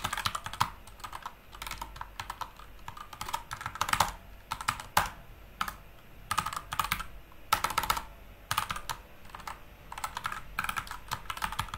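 Computer keyboard being typed on: clicky keystrokes in irregular bursts with short pauses between them.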